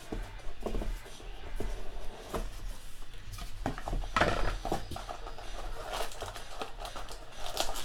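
Crinkling and rustling of a sports-card pack wrapper and cards being handled, in a run of short rustles and clicks that grows louder about four seconds in, over a steady low hum.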